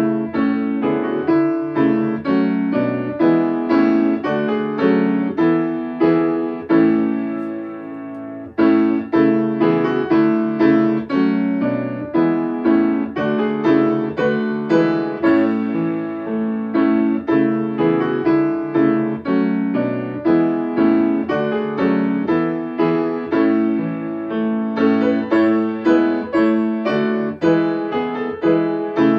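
Piano playing: a melody of struck notes over chords, with one point about eight seconds in where the notes die away before the playing starts again.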